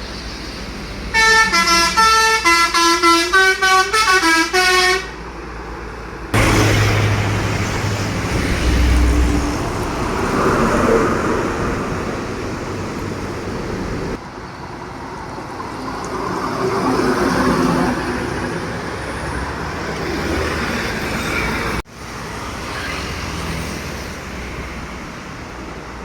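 Modified Hino dump truck's multi-tone trumpet horn playing a quick tune of short, loud notes for about four seconds. Then heavy trucks drive past, their engine and road noise rising and falling twice.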